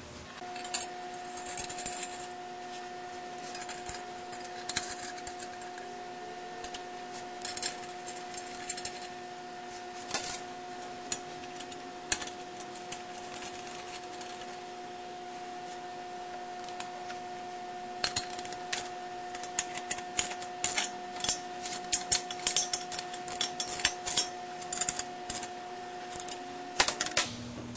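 Scattered metallic clicks and clinks of bolts and fasteners being handled and tightened as a steel adapter plate is bolted onto an engine stand's mounting head. The clicks come thick and fast over the last ten seconds or so, all over a steady hum.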